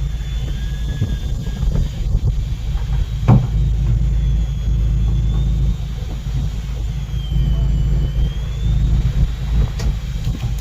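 Steady low rumble of a fishing boat's engine running at sea, with a sharp knock about three seconds in.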